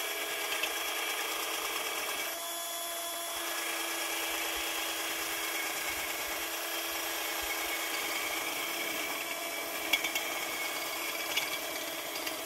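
Cordless drill running steadily, its bit reaming out an undersized hole in a bottle cap. The motor eases off slightly about two seconds in, then runs on.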